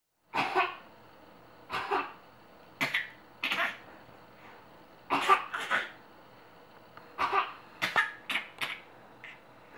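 Short deliberate coughs from a 7-month-old baby, traded back and forth with an adult as a playful coughing 'conversation': about ten brief coughs, one or two at a time, with pauses between.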